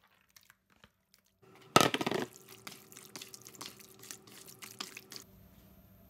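Wet squelching and slapping of hands kneading raw chicken pieces into a thick yogurt-and-spice marinade in a plastic bowl. It begins with a loud squelch about two seconds in, goes on as a run of short squishes, and stops about a second before the end.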